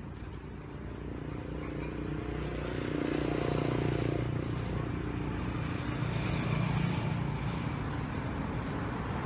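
A motor vehicle's engine runs with a steady hum. It grows louder over the first three seconds and then holds, swelling again a little past the middle.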